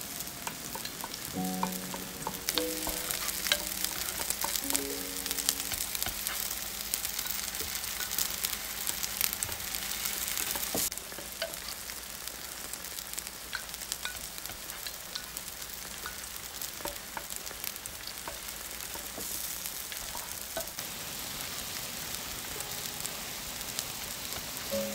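Diced vegetables sizzling in hot oil in an earthenware pot as they are stirred with a wooden spoon, with scattered crackles and clicks. The sizzle is louder in the first half and eases a little about eleven seconds in.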